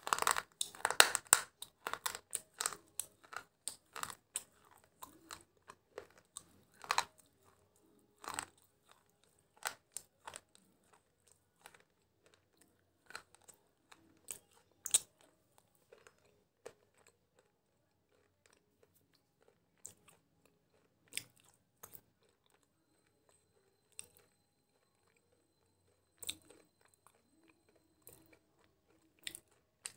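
A person chewing crunchy food close to the microphone. A quick run of crunches in the first couple of seconds, then single crunches every second or two that grow sparser.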